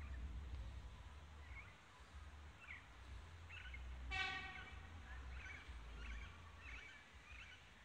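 Small birds chirping off and on in woodland over a low rumble. About four seconds in, one brief, louder pitched sound cuts through.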